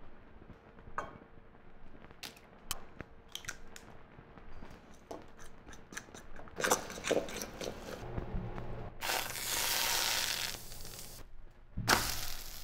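A fork stirring flour and water in a ceramic bowl, with scattered clicks and scrapes against the bowl. Then pancake batter sizzling in a hot steel frying pan for about two seconds, and again briefly near the end as a spatula presses the pancake down.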